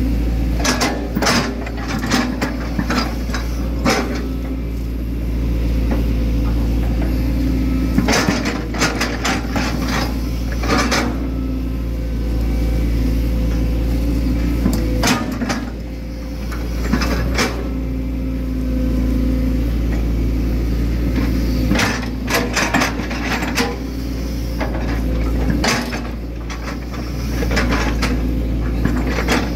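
Hitachi Zaxis 110 excavator's diesel engine running steadily, heard from the cab, with repeated clusters of sharp clanks and knocks as the bucket digs and scrapes mud.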